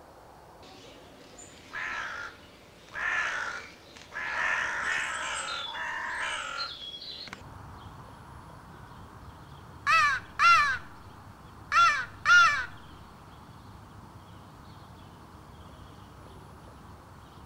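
Johnny Stewart Hammerin crow call blown in a string of crow caws. First come four harsh, rasping caws, the later ones longer. A few seconds later come two pairs of short, clear, pitch-arched caws.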